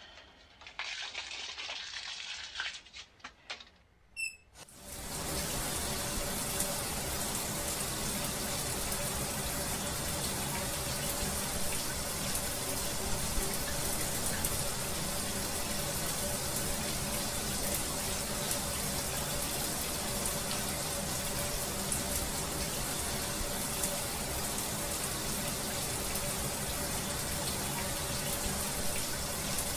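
Shower spray hissing steadily as water pours down over a person in a bathtub shower; the spray comes on suddenly about five seconds in and then runs evenly.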